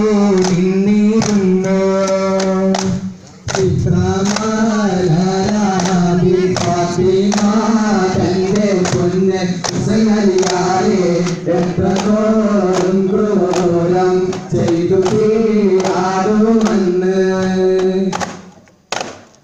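Men's voices singing a chanted devotional song together, accompanied by steady beats on hand-struck duff frame drums. The singing breaks off about a second before the end, leaving a few lone drum strikes.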